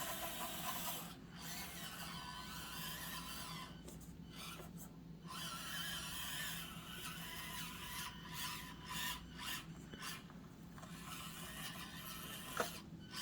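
Stock Axial SCX24 Deadbolt micro RC crawler crawling slowly over the course: the thin whine of its small electric motor with the scrape and rub of tyres and plastic on the terrain, fading briefly partway through.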